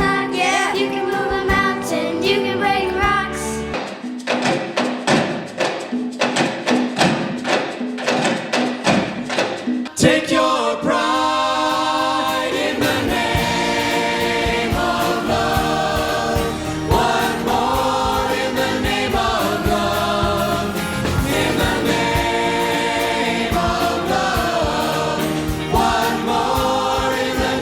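Choir singing. A few seconds in, the singing gives way to a run of rhythmic sharp strokes, about three a second, before the full choir comes back in at about the midpoint and carries on.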